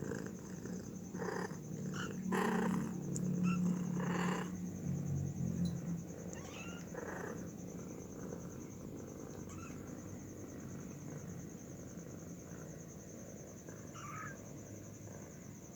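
A cat giving a low, steady rumble for about four seconds in the first half, with a few short breathy bursts. Later come a couple of faint, short, high calls.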